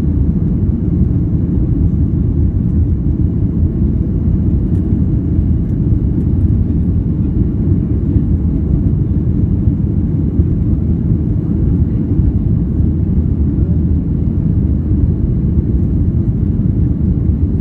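Boeing 737-800's CFM56 jet engines and airflow heard from inside the passenger cabin during takeoff: a steady low rumble that holds unchanged.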